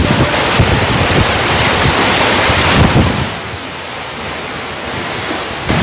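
Strong storm wind blowing hard, buffeting the microphone with low rumbles, loud for about three seconds and then easing a little.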